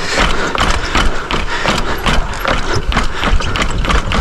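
Bicycle rattling and knocking as it rides down rough, steep, stepped ground: a rapid, irregular run of clicks and knocks over a low rumble.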